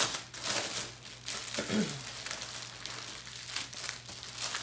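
Clear plastic packaging crinkling and rustling as hands handle a plastic-wrapped diamond-painting canvas. The crinkling is busiest in the first second or so, then settles to lighter rustling.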